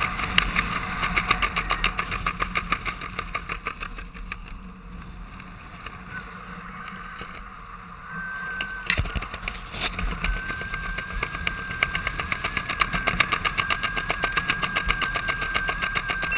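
Parachute fabric flapping rapidly in the airflow under an open canopy, with wind on the microphone. The flutter eases for a few seconds midway and then comes back stronger, and a thin steady high whistle joins it about ten seconds in.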